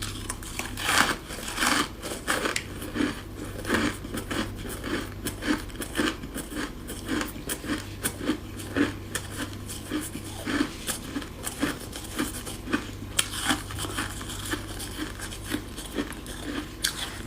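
Freezer frost being chewed close to the microphone: many quick irregular crunches of packed frost breaking between the teeth, several a second, over a faint steady low hum.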